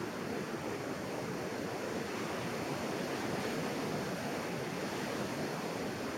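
Ocean surf breaking and washing onto a sandy beach, a steady rush of waves.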